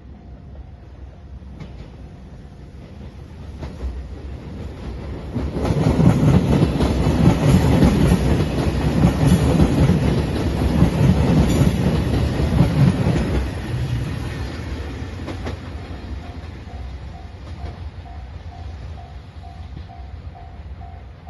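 A JR Shikoku 2700 series diesel limited express train passes a level crossing. Its wheels clatter over the rail joints, building from about four seconds in and loudest from about six to thirteen seconds, then fading away. Near the end the crossing bell is heard ringing, about two dings a second.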